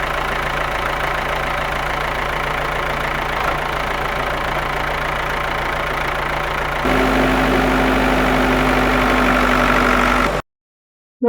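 A mini tractor's motor running steadily. About seven seconds in it cuts abruptly to a louder take, and it stops dead shortly before the end.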